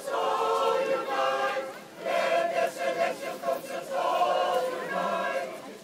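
Mixed choir of women and men singing a cappella in sustained phrases, with a short breath pause about two seconds in.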